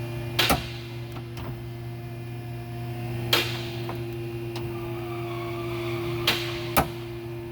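2020 Toyota Tundra power window running, giving several sharp pops as it travels, over a steady hum. The popping comes from a loose bolt that needs tightening, by the mechanic's finding.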